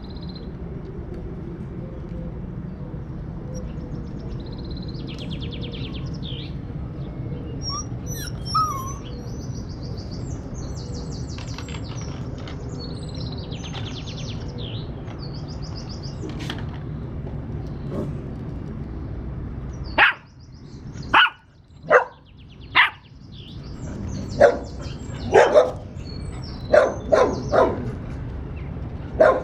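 Puppies yipping and barking in short sharp bursts. The barks start about two-thirds of the way in, first about one a second, then in quicker clusters, over steady background noise and faint bird chirps.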